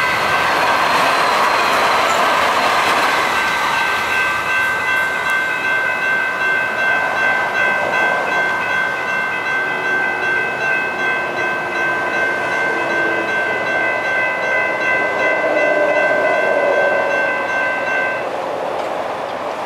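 Railroad grade-crossing warning bell ringing continuously with a fast, even pulse while the crossing gates come down, then cutting off about 18 seconds in. Road traffic noise runs underneath.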